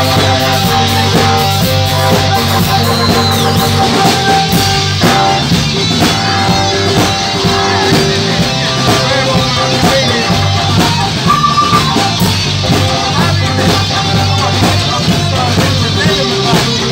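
A live rock band playing loudly and continuously, with electric guitars over a drum kit.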